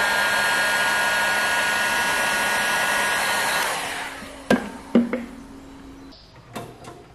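Heat gun blowing steadily as it shrinks heat-shrink tubing over a circuit board's header pins. It is switched off and winds down just under four seconds in, and two sharp knocks follow.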